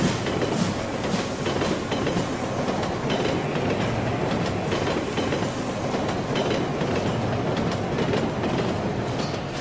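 Train running with the steady rumble of rolling wheels and the clickety-clack of wheels crossing rail joints.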